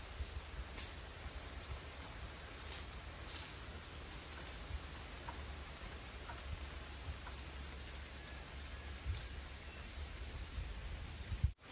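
A small bird calling in the forest: five short, high chirps that each dip and rise in pitch, spaced a second or more apart. Under them runs a steady low rumble with faint rustles and ticks.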